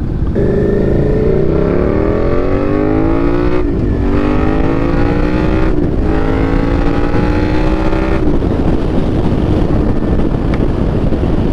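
2022 Suzuki SV650's V-twin engine, through an aftermarket slip-on exhaust, accelerating hard through the gears: the note climbs, drops at an upshift a little after three and a half seconds, climbs again, drops at a second upshift near six seconds, and climbs once more. The throttle closes a little after eight seconds, leaving steady wind and road noise.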